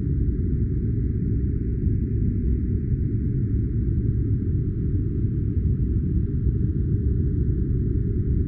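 Steady generated noise for sleep or study: a deep, even rumble with a faint hiss above it, unchanging throughout.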